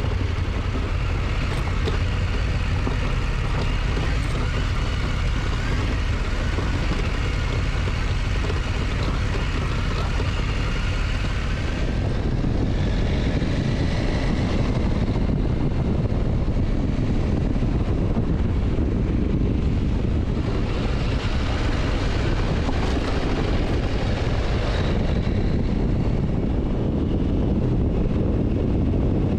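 KTM motorcycle being ridden, its engine running steadily under a loud rush of wind and road noise. About twelve seconds in, the sound changes to a heavier, lower rumble.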